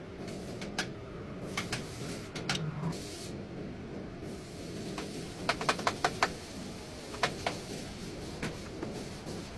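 Hand tools and metal brake parts being handled during a rear brake pad change: sharp clicks and taps over a steady low background hum, with a quick run of about five clicks around the middle and a few single ones later.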